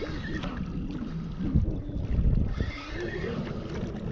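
Wind buffeting the microphone, a steady low rumble, with faint wavering voice-like sounds in it.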